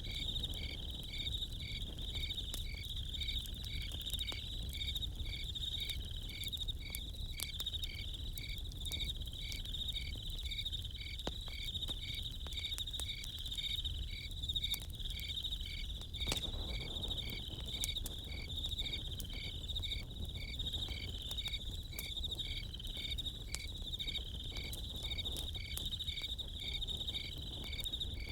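Crickets chirping steadily in a dense trill, with another insect giving a regular pulsed chirp over it. Scattered small crackles and pops from a campfire, over a low steady rumble.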